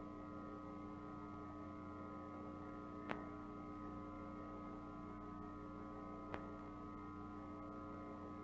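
Faint steady electrical hum made of several held tones, with two soft clicks, one about three seconds in and one just past six seconds.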